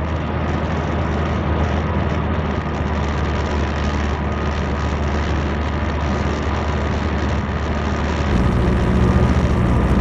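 A light aircraft's piston engine and propeller droning steadily at cruise, heard from inside the cabin. About eight seconds in the tone shifts abruptly to a deeper, fuller drone.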